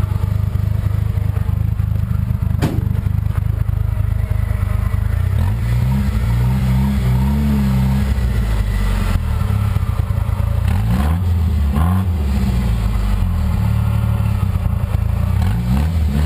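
A Jeep's engine running close by and revving up and down several times, about six, eleven and sixteen seconds in, under load as it pulls on a chain hooked to a pickup's door hinge to drag the pushed-in pillar back out. A single sharp knock sounds about three seconds in.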